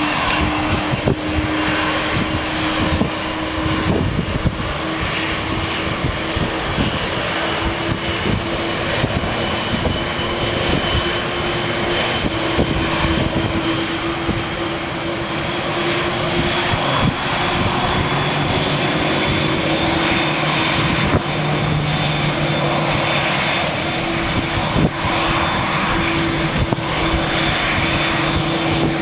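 Boeing 787-8's twin turbofan engines running at low taxi power: a steady hum with a faint high whine, and a second lower tone joining about two-thirds of the way through. Strong wind buffets the microphone throughout.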